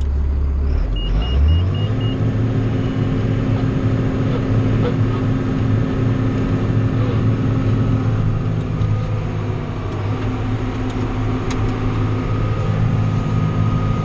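John Deere 7800 tractor's six-cylinder diesel engine heard from inside the cab, picking up speed about a second and a half in and then running steadily under load while the grain cart's auger unloads corn into the truck. A run of five quick high beeps sounds just as the engine speeds up.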